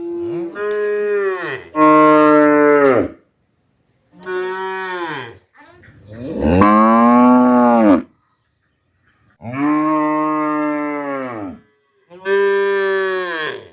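Cattle mooing: about six long moos in a row, each rising then falling in pitch, with short silent gaps between them.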